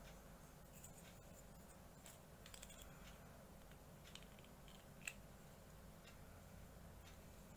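Faint, scattered clicks and snips of plastic SD Gundam model-kit parts being worked by hand, with one sharper click about five seconds in.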